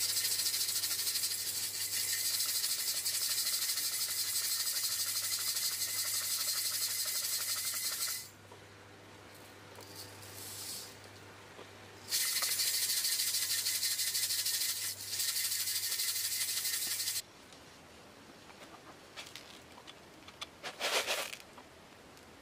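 Silica sand rattling and swishing inside the fuel tank of a 1985 Coleman Peak 1 Model 400 gasoline stove as the tank is shaken by hand, the sand scouring rust off the tank's inner wall. Two long bouts of shaking, about eight seconds and then five, with a pause between.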